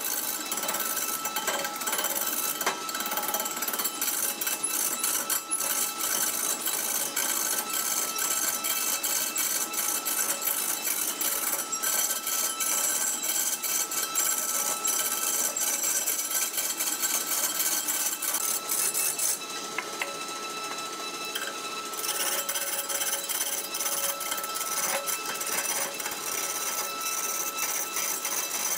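Heavy wood lathe spinning a large log while a hand-held turning tool cuts its surface: a rapid rattling chatter of steel on wood with a high rasp, over a steady thin machine whine. The rasp eases for a couple of seconds about two-thirds of the way through.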